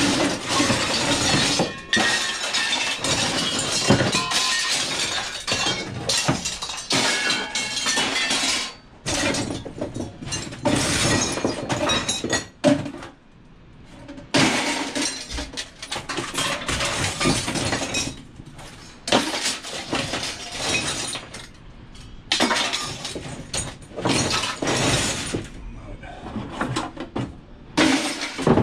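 Scrap iron being thrown down onto a metal pile: a near-continuous clatter and crash of metal pieces, with a few short lulls.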